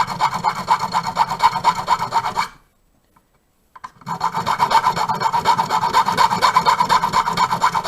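Hand file cutting a key blank with rapid back-and-forth strokes, deepening the cuts for pins that need to come down a lot. The filing stops about two and a half seconds in and starts again a second or so later.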